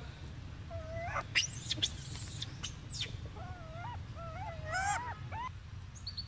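Baby macaque giving a series of high, wavering cries, most of them in quick succession in the second half, with a few sharp high chirps about a second or two in and a steady low rumble underneath.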